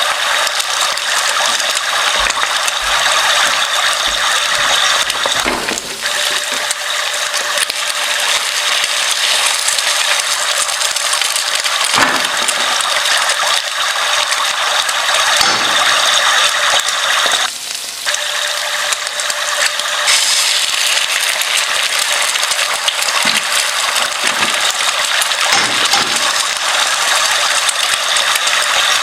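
Continuous rapid mechanical ratcheting and grinding from a kitchen gadget. It changes briefly in tone twice along the way.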